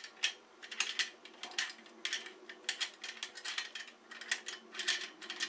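Stainless steel tri-clamp fittings clicking and clinking in the hands as a tri-clamp is fitted around the ferrules of a filter tube. The clicks come in a quick, irregular run of about two to three a second.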